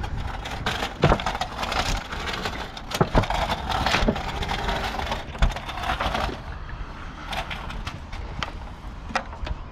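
Clunks and scraping of a steel hot water heater tank being shifted and handled, with several sharp knocks along the way.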